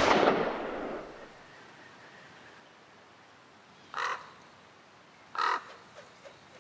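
A loud closing crash of the music rings and dies away over the first second. Then a crow caws twice, about a second and a half apart.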